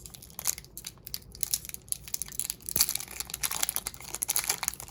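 Foil Pokémon booster pack wrapper crinkling as it is handled, a run of small crackles that grows busier toward the end.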